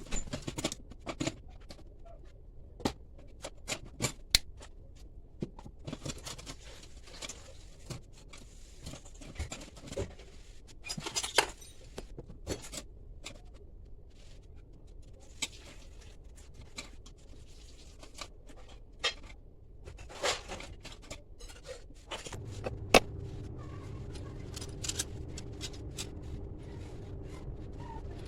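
Irregular sharp metallic clicks, knocks and scraping as metal parts of a wire mouse trap and hand tools are handled during a screw repair. From about two-thirds of the way in, a steady low hum sets in under the clicks.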